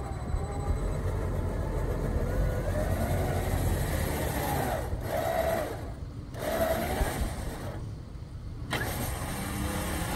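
SUV engine running, its revs rising and falling as the vehicle, stuck in a snow-covered washout, works to pull itself out against an anchor.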